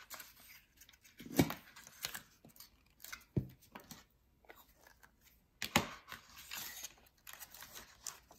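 White paper being handled and bent, rustling and crinkling, with a few sharp clicks and knocks from the glue stick and paper being set down. The loudest knock comes about a second and a half in.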